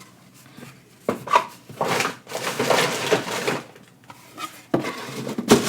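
Cardboard and booster-pack packaging handled on a wooden desk: rubbing and rustling for a couple of seconds, then a sharp knock near the end as something is set down.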